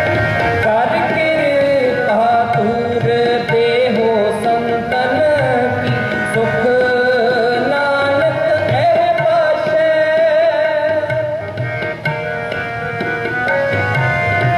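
Sikh kirtan: two harmoniums sustaining chords over a tabla beat, with a voice carrying a long, wavering melodic line without clear words.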